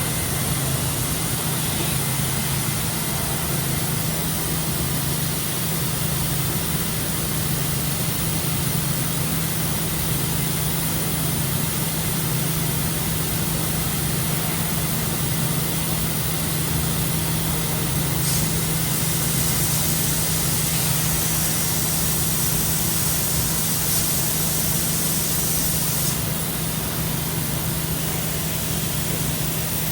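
Parpas Diamond 5-axis gantry machining center running: a steady machine hum with a hiss over it. The hiss turns brighter for several seconds in the second half, then settles back.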